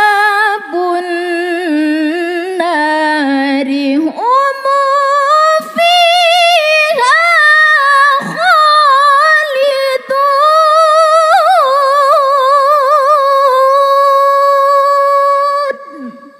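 A woman's solo Quran recitation (tilawah) in the melodic mujawwad style: one long, ornamented sung phrase that starts low, climbs higher about four seconds in and is held there with wavering ornaments, ending shortly before the end.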